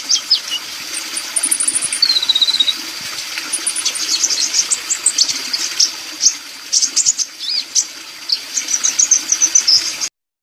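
A sunbird (the kolibri of Indonesian bird-keepers) singing hard: rapid, high-pitched chirps, sweeping notes and short trills in quick succession over a steady hiss like running water. The sound cuts off abruptly near the end.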